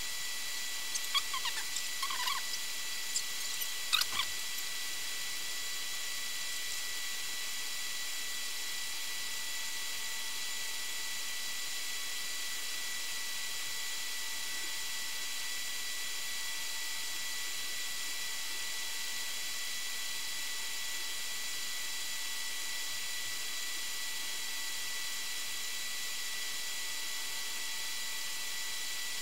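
Steady hiss with a few faint, unchanging high tones, the recording's own background noise. In the first four seconds there are a handful of short, high squeaks or chirps.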